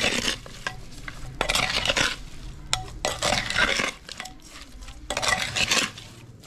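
A spoon stirring raw chicken, tomato, onion and cilantro together in an unglazed clay pot, scraping and squelching against the earthenware in about four strokes.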